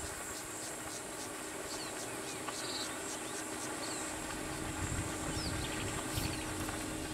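Steady high-pitched insect shrilling, pulsing about four times a second, with a few short bird chirps over a low rumble. A faint steady hum joins about halfway.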